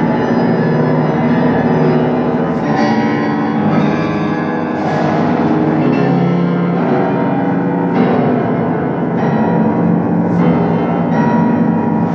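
Grand piano played live: dense, sustained chords ringing together, with several hard-struck accents through the passage.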